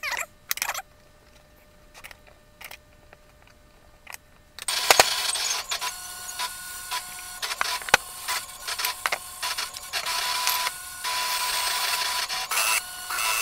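Light clatter and knocks of wooden model parts being handled, then a cordless drill running in repeated bursts as it drives screws into the wooden pieces, with sharp knocks in between.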